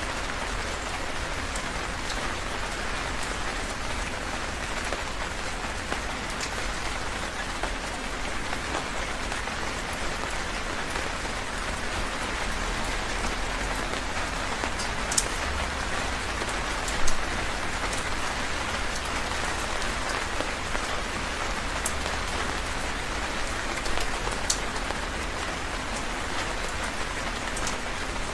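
Heavy rain falling steadily, with a few sharp drips or splashes standing out now and then, the loudest a little past halfway.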